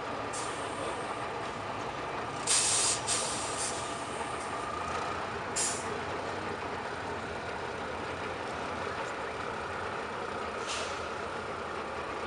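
Six-wheeled off-road trial truck's engine running steadily as it works slowly up a steep bank, with short sharp hisses of air from the truck, twice about two and a half to three seconds in, again at about five and a half seconds, and once more faintly near the end.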